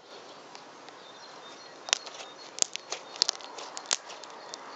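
Homemade glue slime squeezed and kneaded in the hands, making a run of sharp wet clicks and pops from about two seconds in, over a faint steady hiss.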